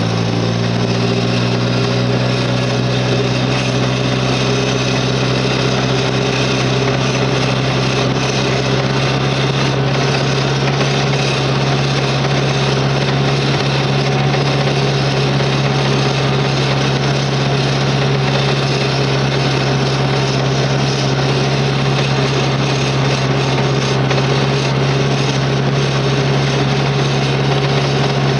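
Gehl 4400 skid steer's engine running at a steady throttle: an unbroken low drone that holds one pitch throughout.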